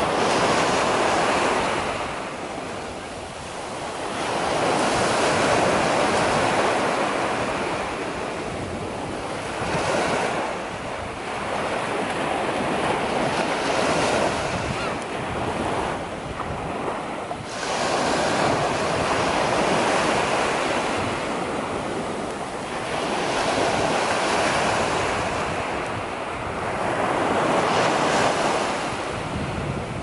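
Small ocean waves breaking and washing up onto a sandy beach, the surf hiss swelling and fading in a surge every few seconds.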